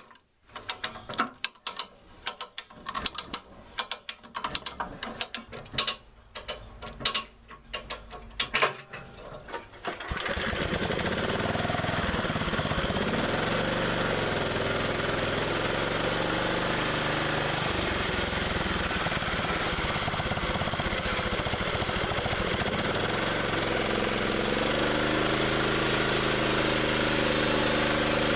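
Irregular metal clanks and knocks for the first few seconds. Then the gas engine of a homemade band sawmill starts and runs steadily, and its revs rise a little near the end.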